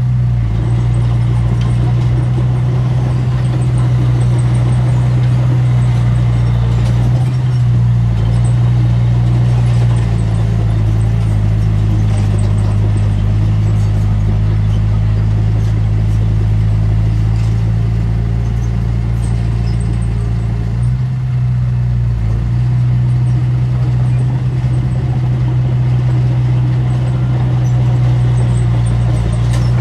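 Diesel engine of heavy earthmoving equipment running steadily, its pitch shifting a few times as the load changes.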